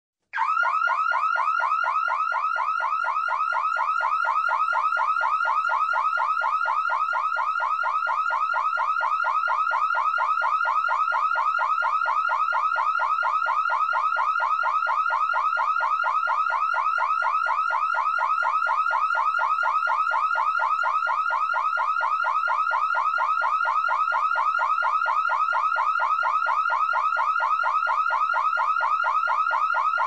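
Electronic alarm sounding: a loud tone that sweeps rapidly upward over and over, several times a second, without a break.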